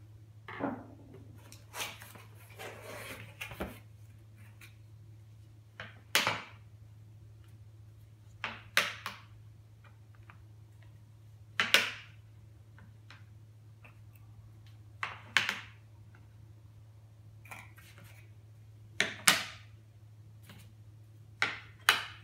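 Metal running medals being set into wooden medal display trays, each landing with a sharp click or double click on the tray's metal plate every few seconds, with some rustling near the start.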